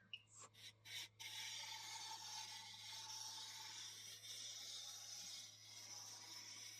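A wood lathe turning a hardwood handle blank, with a turning tool scraping it down to diameter. It is a faint, steady hiss of cutting over a low hum, after a few light clicks in the first second.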